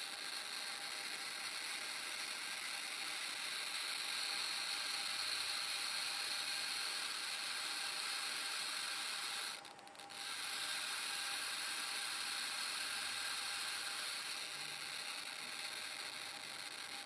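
Geiger counter clicking at a very high rate from a Soviet SI-8B pancake Geiger-Müller tube exposed to a strong strontium-90 beta check source, the clicks running together into a dense, steady crackle. It briefly drops out about ten seconds in.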